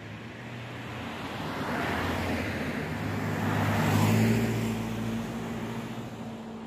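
A road vehicle passing close by: engine hum and tyre noise swell to a peak about four seconds in, then fade away.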